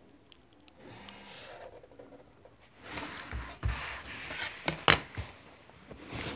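A plastic ruler and pen being handled on paper on a wooden table: a faint scratch of a pen drawing along the ruler, then scraping and rustling as the ruler is shifted, with a couple of dull thumps and one sharp click.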